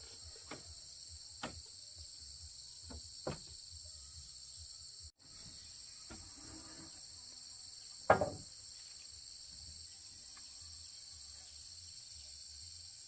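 Steady insect chorus of a forest, with a few short knocks scattered through it, the loudest about eight seconds in. The sound cuts out for an instant about five seconds in.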